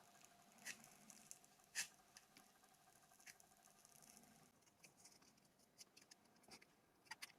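Faint, scattered small clicks and light scrapes of hand tools working on a mobile phone's plastic housing while it is taken apart, with a few quick clicks near the end.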